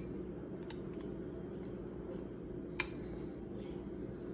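A metal spoon clinking and scraping against a glass bowl of mashed food, a few light clinks with one sharper clink near the middle. A steady low hum runs underneath.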